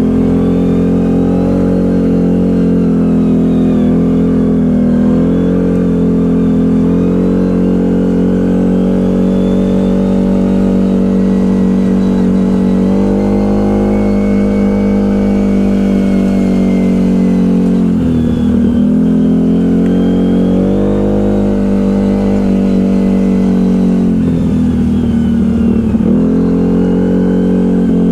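ATV engine running steadily under throttle while riding. The engine note drops twice as the throttle is let off, once past the halfway mark and again near the end, before picking back up.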